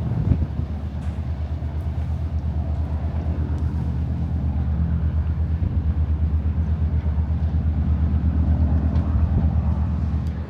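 A low, steady engine or motor drone with a fast, even pulsing beat, cutting off sharply at the end.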